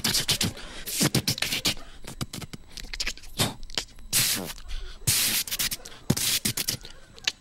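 A man making sound effects with his mouth into a microphone: rapid clicks and short hissing bursts, mimicking barbershop noises such as scissors and sprays.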